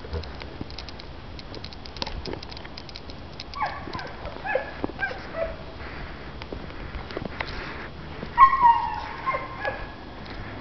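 A dog yipping and whimpering in short, downward-bending cries, in two bouts a few seconds apart, the second the loudest. Scattered light clicks and taps come before the first bout.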